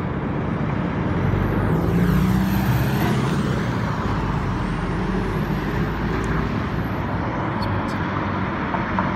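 Road traffic on a busy street: a heavy vehicle runs past, loudest about two seconds in, over a steady rumble. A thin high whine rises and falls twice.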